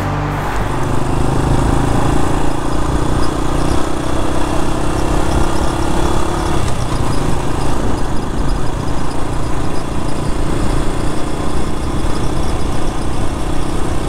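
Small step-through motorbike engine running steadily while being ridden, with wind rumbling on the microphone.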